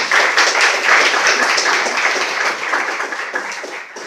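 Audience applauding, thick and steady, then thinning out near the end into a few scattered claps.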